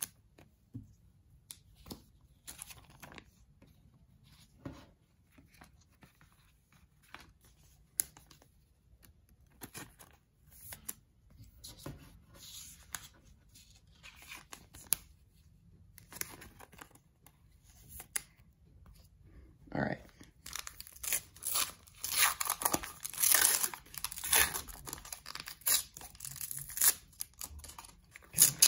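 Sparse soft rustles and taps of trading cards being handled, then, about two-thirds of the way through, a paper baseball card pack wrapper torn open and crinkled with dense, loud crackling.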